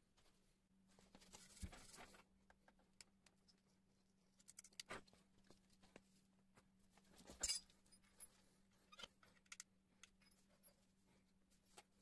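Quiet handling noises while working on an electric scooter's rear wheel: scattered light clicks and small metallic clinks of hand tools and parts, a brief scuffing rustle about a second in and a sharper click about seven and a half seconds in. A faint steady hum sits under it.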